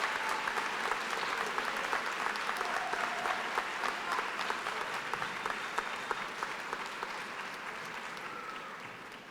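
Large audience applauding after an award winner is announced, the clapping gradually dying away near the end.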